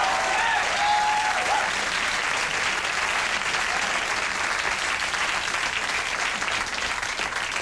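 Studio audience applauding, with a few voices calling out near the start; the applause eases off near the end.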